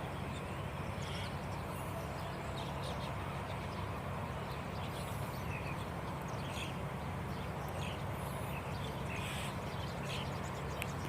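Birds calling here and there in short, faint chirps over a steady low background rumble.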